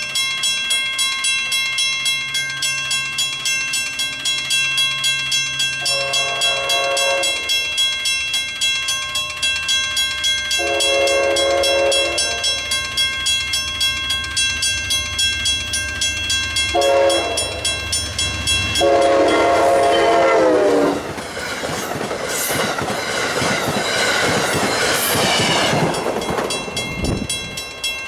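Grade-crossing warning bell ringing steadily as a diesel locomotive approaches and sounds its horn for the crossing: two long blasts, a short one and a final long one, over a growing engine rumble. After the last blast, a loud rush of noise swells and then fades near the end.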